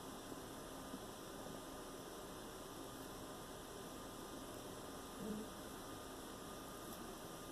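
Steady low hum with a faint hiss, and a single short soft sound about five seconds in.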